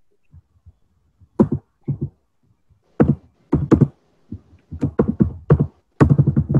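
Computer keyboard typing: a few scattered keystrokes, then quicker irregular runs of keystrokes in the second half.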